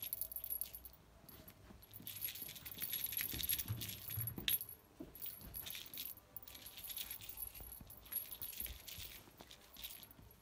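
Light, irregular jingling and rattling of a small cat toy as kittens bat at a wand teaser toy.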